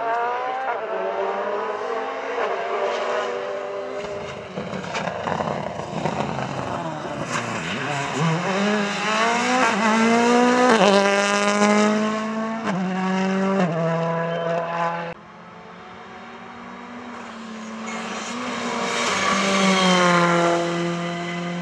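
Rally cars at full throttle passing one after another, first a Ford Fiesta and then a Škoda Fabia R5 with its turbocharged four-cylinder. The engines rev up hard, and the pitch climbs and drops back at each quick upshift. An abrupt drop in level about two-thirds of the way in leads to the second car swelling loud as it goes by, then falling in pitch.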